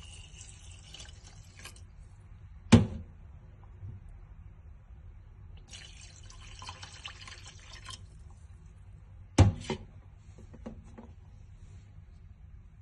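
Water poured from a stainless steel cup into an enamel pot of dry pasta, in two pours of about two seconds each, the second starting about six seconds in. Two sharp knocks, the loudest sounds, come about three seconds in and about nine and a half seconds in, the second one doubled.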